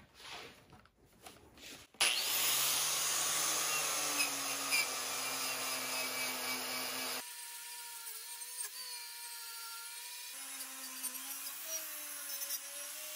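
Makita angle grinder with a wire cup brush switched on about two seconds in and run against a cast-iron drill press base, scrubbing off rust and dirt. The sound drops and changes about seven seconds in.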